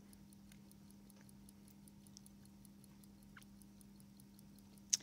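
Omega pocket watch ticking faintly and evenly at about five ticks a second over a steady low hum, with one sharper click near the end.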